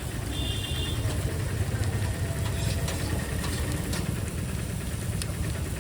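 A steady low engine rumble, like a motor idling, with a few light clicks and a brief high beep about half a second in.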